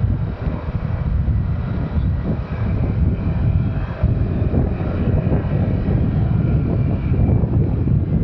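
Honda Click 125i scooter's single-cylinder 125 cc engine running steadily at riding speed, mixed with wind rushing over the microphone.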